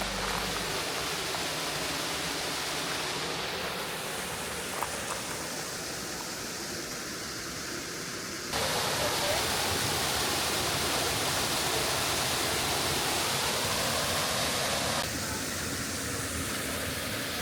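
Waterfall: the steady rush of falling water. It jumps abruptly louder about halfway through and drops back a little near the end.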